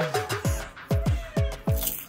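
Background music with a steady beat: deep drum hits that slide down in pitch, about two a second, over short chords.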